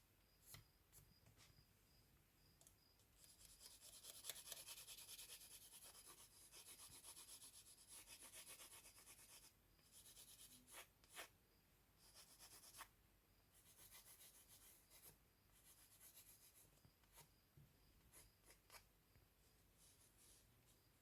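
Faint sound of a drawing tool scratching on paper: a long run of rapid back-and-forth strokes from about three to nine seconds in, another shorter run later, and scattered single strokes and light taps in between.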